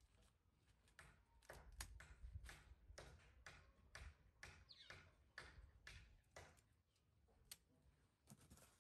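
Faint, dry rustling and ticking of fresh maize cobs being husked by hand, with the leaves torn and crackling in short irregular strokes.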